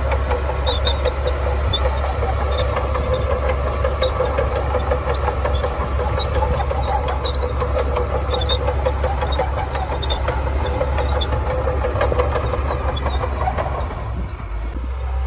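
Shantui DH17C2 crawler bulldozer's diesel engine running steadily under load, with rapid clanking and small high squeaks from its steel tracks. The sound eases slightly near the end.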